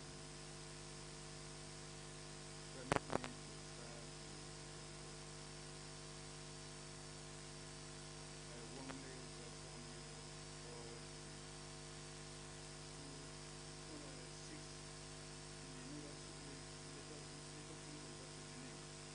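Steady electrical mains hum with its overtones, with two short sharp clicks about three seconds in.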